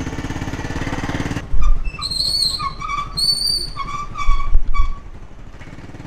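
Motorbike engine running steadily, cut off abruptly about a second and a half in. Then a series of short, high whistled calls over a few low thumps of wind on the microphone.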